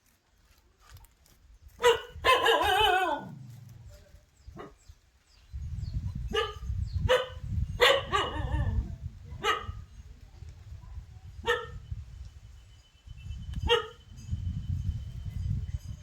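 A dog barking in single sharp barks every second or so, with a longer wavering yelp that falls in pitch about two seconds in. A low rumble runs underneath in the middle and near the end.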